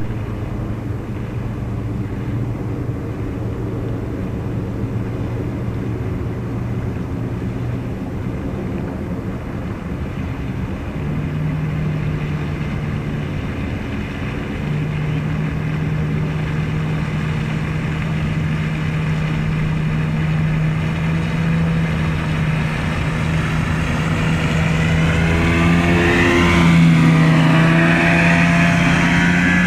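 Old two-stroke 30 hp Yamaha short-shaft outboard running at speed, its steady engine note growing louder as the boat approaches and passing close by about 26 seconds in, with the rush of water from its wake.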